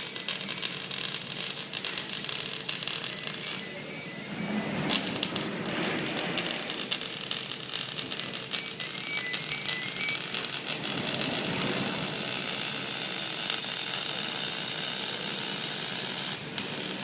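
Robotic arc welding: the arc crackles and hisses steadily with dense rapid ticking. The crackle stops for about a second some three and a half seconds in, then strikes again, and breaks off briefly near the end, gaps between the programmed welds.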